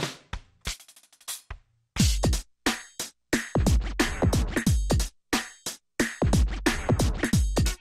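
Electronic music with a hard drum-machine beat and deep kick drums; the beat thins out to sparse hits for about two seconds, then comes back in full.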